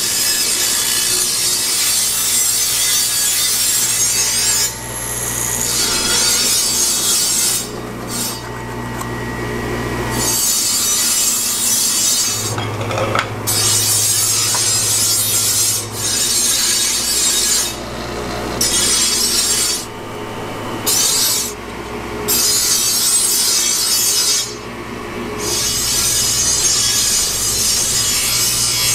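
Steel sword blade held against a spinning abrasive wheel on an electric bench grinder: a steady harsh hiss over the motor's low hum, breaking off briefly several times as the blade comes away from the wheel.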